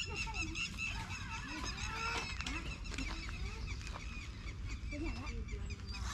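A flock of birds calling together without a break: many short, overlapping honking and chirping calls, several each second.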